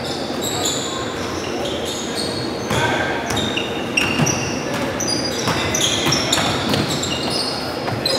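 Basketball game in an echoing gym: sneakers squeaking in short, high chirps on the hardwood floor, with a basketball bouncing now and then.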